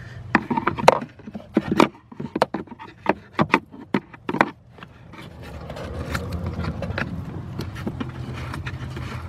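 Screwdriver tip and fingers scraping and clicking against the plastic blower housing while raking debris out of the blower motor resistor opening: a quick run of sharp clicks and scrapes for about the first four seconds, then a steadier rustling scrape.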